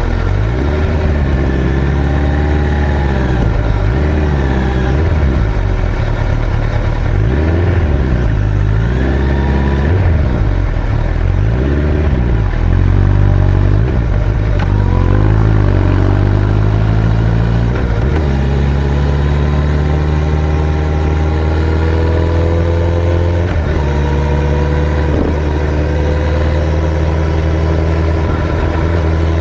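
Suzuki Hayabusa GSX-1300R's inline-four engine under way. For the first ten seconds or so its pitch rises and falls again and again, then about two-thirds of the way through it settles into a steady note that slowly climbs.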